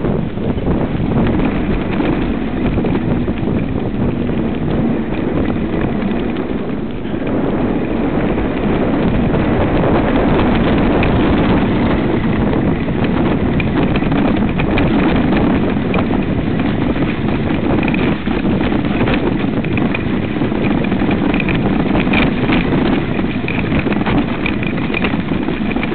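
Mountain bike descending a rough, leaf-covered dirt trail at speed, filmed from the bike itself: continuous clatter and rattling as it jolts over bumps, over a rumble of tyres on the ground and wind on the microphone.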